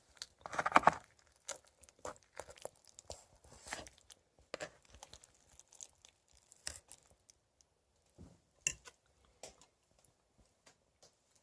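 Scattered scrapes, clicks and crinkles of a utensil working microwaved lasagna out of its tray onto a plate, loudest about a second in.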